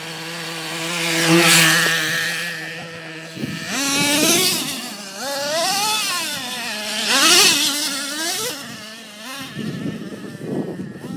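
Small nitro engine of a radio-controlled monster truck, holding a steady pitch for about three seconds, then revving up and down again and again as the truck speeds across dirt. It gets louder with a hiss of spraying dirt each time the truck passes close.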